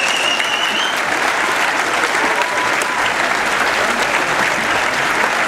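A large lecture-hall audience applauding steadily and densely. A high, held whistle sounds over the clapping and stops about a second in.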